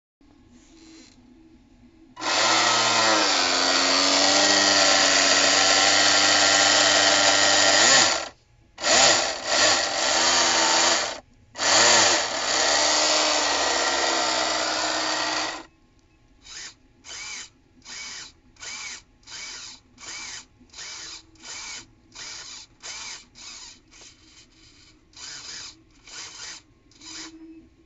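Small electric motor in a 3D-printed scale outboard on a radio-controlled boat, run on the bench: one whine lasting about six seconds, two shorter runs, then a string of quick throttle blips, about two a second.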